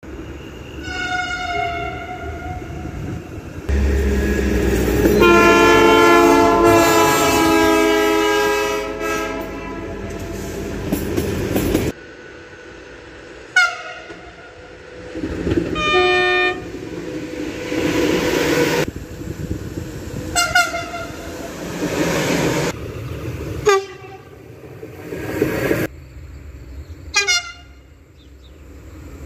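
Train horns sounding in a series of separate clips: a long blast, then a longer multi-tone horn chord over the noise of a moving train, then several short blasts that each start with a quick drop in pitch.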